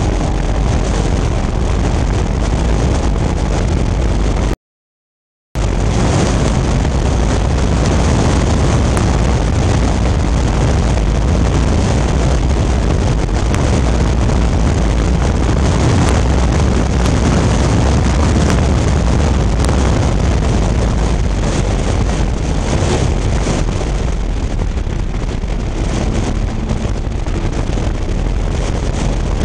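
Vintage Fiat race car's engine running hard at racing speed, heard from the open cockpit with heavy wind noise on the microphone. The sound cuts out completely for about a second near the start.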